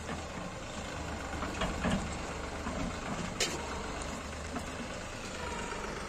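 Tractor-mounted combine harvester's diesel engine running steadily as the machine moves across the field, with one sharp knock about three and a half seconds in.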